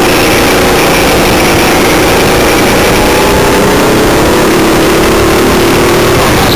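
Go-kart engine heard from onboard, running loud at high revs, its pitch climbing gradually as the kart accelerates.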